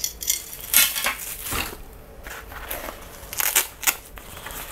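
Unpacking noise: rustling and light clinks as a folded metal light stand and a long fabric bag are handled, in several short irregular bursts.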